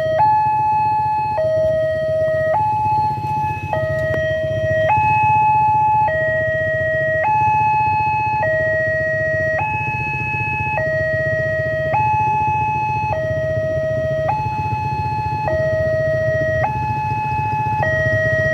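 Railway level-crossing warning alarm from the horn loudspeaker on the crossing signal post: an electronic two-tone sound switching steadily between a higher and a lower note, each held a little over a second, the signal that a train is approaching. A steady low rumble runs underneath.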